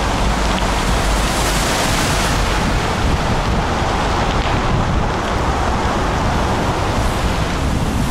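Wind buffeting the microphone of a camera riding on a moving bicycle: a steady, loud rumble and rush.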